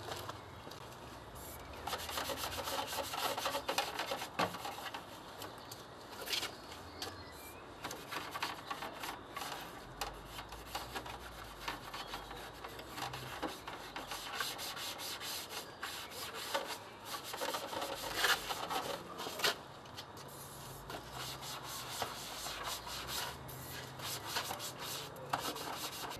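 A cloth rubbing and wiping over a motorcycle's bodywork in quick, irregular strokes. Near the start there are hisses of aerosol cleaning spray.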